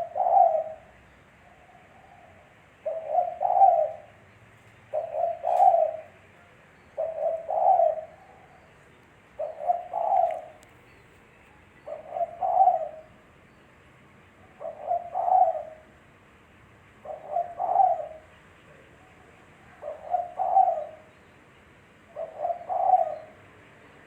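Spotted dove cooing its song over and over: a phrase of two or three low, soft coo notes about every two and a half seconds, around ten phrases in all.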